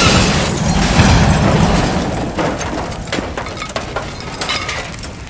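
The tail of a large explosion: a loud, deep rumble that fades over about two seconds. Scattered sharp knocks and ticks of falling debris follow as it dies away.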